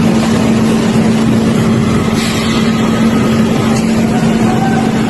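A motor or engine running steadily at a constant pitch, loud, with a strong even hum.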